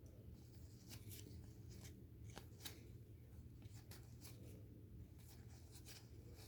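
Near silence with faint, irregular clicks and rustles of trading cards being handled and slid one past another.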